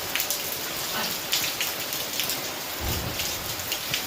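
Steady rain falling, with many separate drops heard through the hiss and a brief low rumble about three seconds in.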